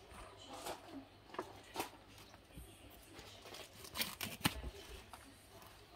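Knife cutting and pulling free the string ties on a banana-leaf bougna parcel: a handful of short sharp snaps and clicks, the loudest about four seconds in.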